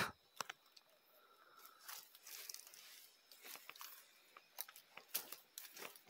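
Faint crunching and rustling of footsteps moving through dry leaves and grassy undergrowth, with scattered small crackles.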